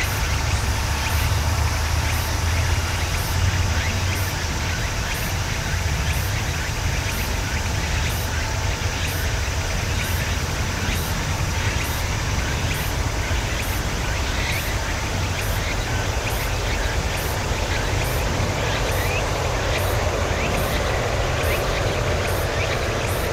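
Boeing 787-8 airliner with Rolls-Royce Trent 1000 engines on final approach, its distant jet noise a steady low rumble that grows fuller near the end as it closes in. Over it run short scattered chirps and a faint high pulsing about once a second.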